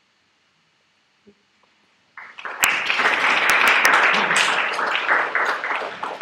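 Audience applauding. The clapping starts suddenly about two seconds in after near silence and a single small knock, and is beginning to die away near the end.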